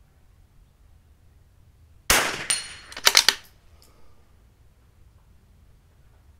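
Bolt-action .22 LR rifle fired once about two seconds in. A quick run of sharp clicks follows about a second later as the bolt is worked, and a second shot comes at the very end.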